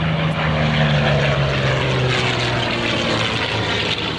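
Curtis P-40 Warhawk's Allison V-1710 V-12 engine and propeller passing overhead, the engine note dropping in pitch as the fighter goes by.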